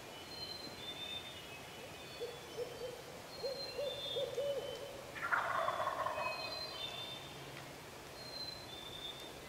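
An owl hoots a run of about eight notes, and about five seconds in a wild turkey gobbler answers with a loud, falling, rattling gobble, the shock gobble a turkey gives to an owl call. Songbirds sing in the background.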